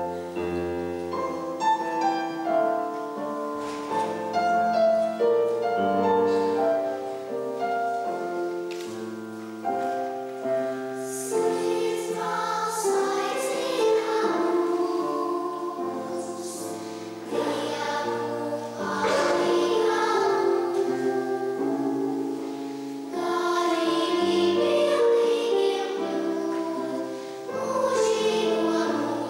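Children's choir of six- to eight-year-olds singing a song, the voices fuller and the words crisper from about eleven seconds in.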